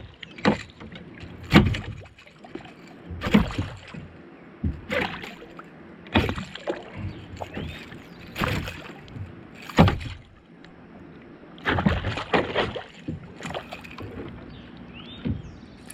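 Water sloshing and knocking around a small boat, in irregular bursts every second or two.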